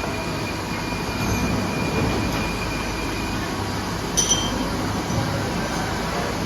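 Steady running noise of a CNC machine, with a steady hum and a faint high whine that fades out about halfway through. A short double metallic clink about four seconds in.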